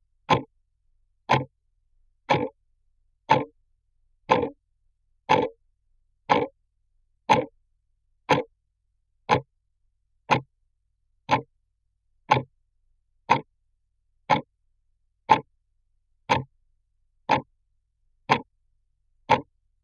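Close-up clock ticking steadily, one sharp tick about every second with silence between.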